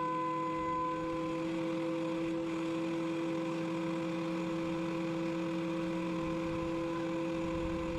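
Thickness planer running with a steady motor whine, milling maple boards; from about a second and a half in the sound turns rougher and fuller as a board feeds through the cutterhead, easing near the end.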